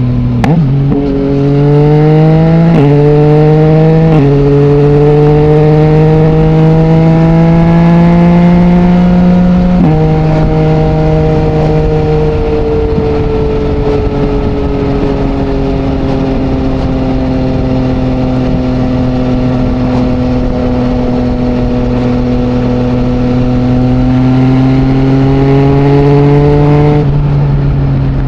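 2020 Yamaha MT-09's three-cylinder engine through an Akrapovic full-system exhaust with no dB killer, pulling hard through the gears: the pitch climbs and drops sharply at quick upshifts in the first four seconds, keeps rising until about ten seconds in, then settles into a steady cruise, swells briefly and falls away as the throttle closes near the end.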